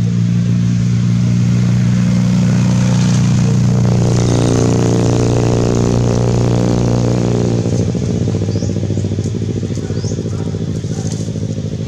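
A motor vehicle engine running loudly and steadily, dying away about eight seconds in.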